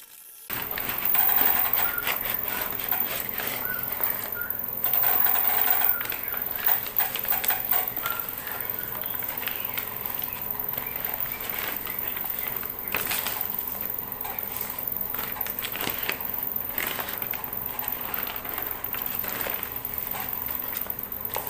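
Brown paper wrapping crinkling and rustling as it is pulled off a pot, in many short crackles, busiest in the first few seconds.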